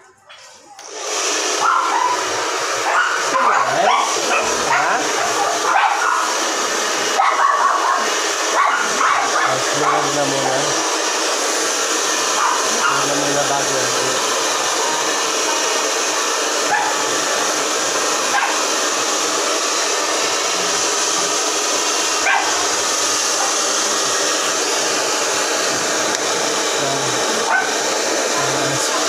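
Handheld electric hair dryer switching on about a second in and then blowing steadily on one speed as it dries a small dog's coat. Short, higher-pitched sounds cut through the blowing now and then during the first ten seconds.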